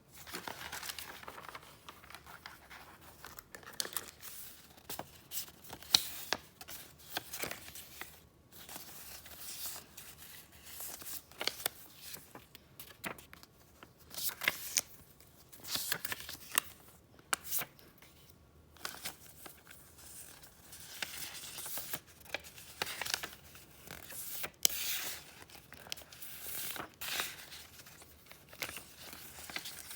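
Paper being handled: rustling and crinkling in short swells, with sharp clicks and taps, the loudest about six seconds in.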